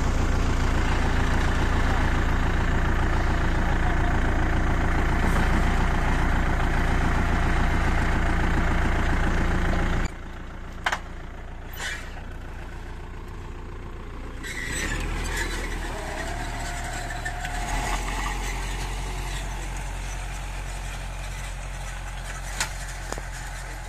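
A farm tractor's engine running steadily close by, pulling a four-row corn planter. About ten seconds in the sound cuts to a quieter, more distant engine, which swells a little again as the tractor drives off across the field.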